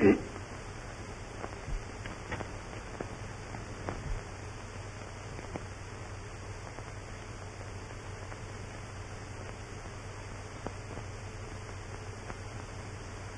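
Steady hiss and low hum of an old 1930s film soundtrack, with scattered faint clicks and crackles. A short, louder noise sounds right at the start.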